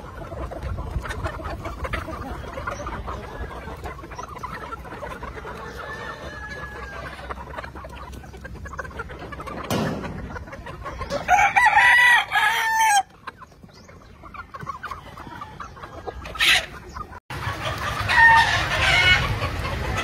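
A flock of gamefowl roosters clucking. One crows loudly about halfway through, and another crows near the end.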